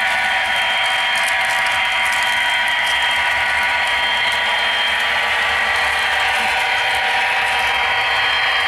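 HO scale model diesel locomotives running along the track with a freight train: a steady mechanical whine of their motors and gearing, with light clicks of the wheels over the rail joints at times.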